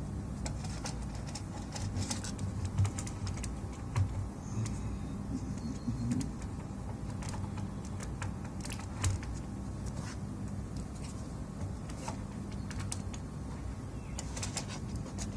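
Scattered light clicks and taps of handling small hard plastic and electronic parts, over a steady low hum.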